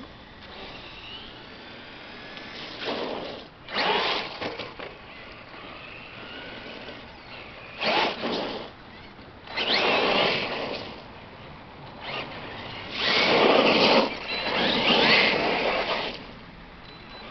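Electric RC car's brushless motor whining in repeated short bursts as it accelerates and passes. The longest and loudest burst comes near the end.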